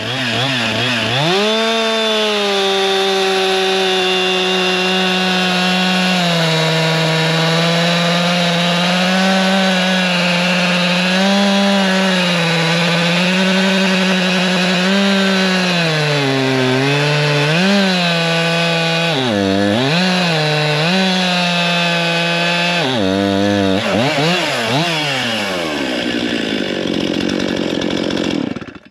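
Stihl MS 261 C 50cc two-stroke chainsaw revving up and plunge-cutting into a hard beech log at full throttle, its engine pitch sagging and recovering as the bar is pushed in. Near the end it revs up and down several times, then drops back toward idle.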